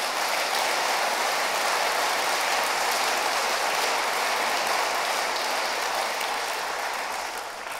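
Audience applauding: dense, even clapping that dies away near the end.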